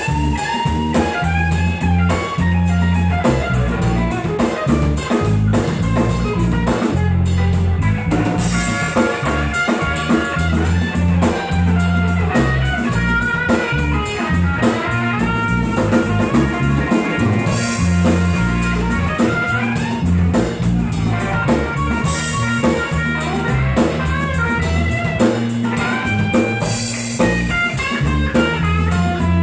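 Live instrumental rock band: a semi-hollow electric guitar playing runs of single notes over electric bass and a drum kit, with a cymbal crash every few seconds.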